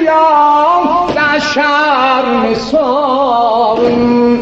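A man's voice singing a mournful Azerbaijani elegy (mersiye) for Imam Hussain, unaccompanied, in long melismatic lines with wavering ornaments. The phrase ends on a held low note that stops near the end.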